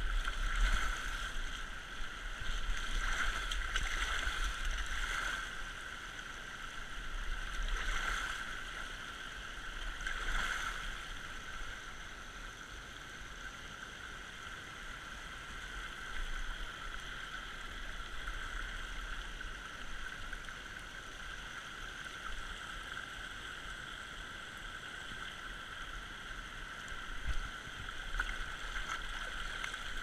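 Shallow creek water running steadily over flat shale rock, with a few louder surges in the first ten seconds or so.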